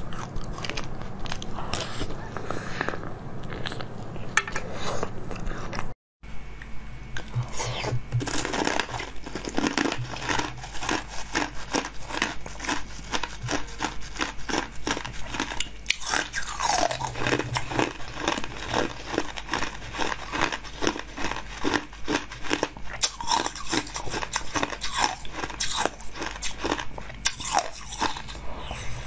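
Close-miked eating sounds: a person biting and chewing jelly sweets, with dense irregular clicks and crunches and wet mouth sounds. A brief silent break comes about six seconds in, where the eating moves from a blue jelly sweet to a green bird-shaped jelly.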